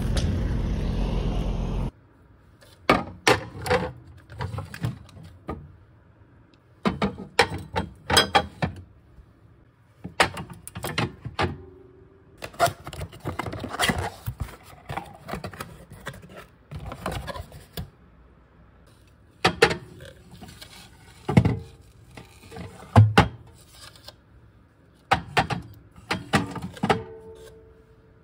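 A steady low rumble for about two seconds cuts off abruptly. Irregular clicks, knocks and short scrapes follow, as of objects being handled.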